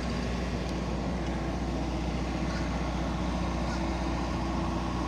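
A steady low engine-like drone with an even outdoor noise over it, unchanging throughout.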